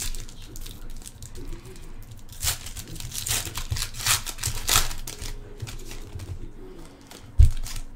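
Foil trading-card packs (Panini Prizm football hobby packs) being torn open and handled, with rustling and a run of sharp crinkling rips between about two and a half and five seconds in. One low thump near the end.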